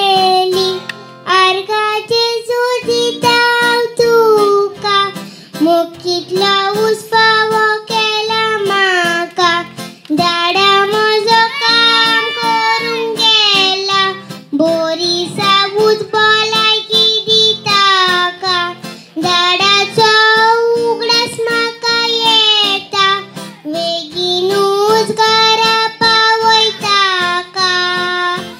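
A young girl singing a slow song solo into a microphone in long held phrases, accompanied by a strummed acoustic guitar.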